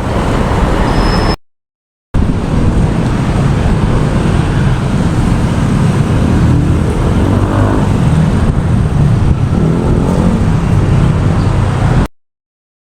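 Steady road traffic noise with vehicles running by, heavy in the low end, cut off abruptly by a short dead-silent gap about a second and a half in and again near the end.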